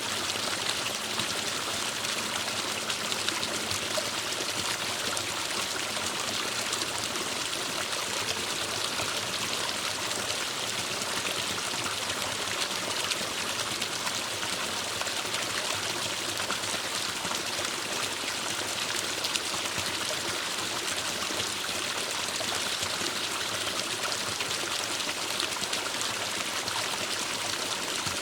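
Forest stream flowing and splashing over rocks, a steady rushing with no breaks.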